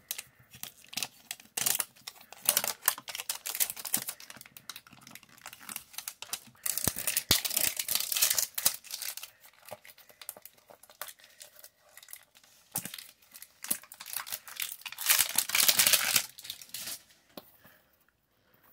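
Clear plastic shrink-wrap being torn and peeled off a Poké Ball tin and crumpled in the hands: crinkling and crackling in irregular bursts with a few sharp clicks, loudest about fifteen seconds in.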